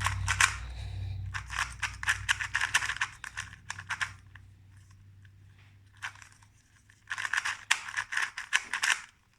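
Rapid plastic clicking of a 2x2 speedcube being turned fast by hand, in two bursts of quick turns with a quieter pause of a few seconds between them.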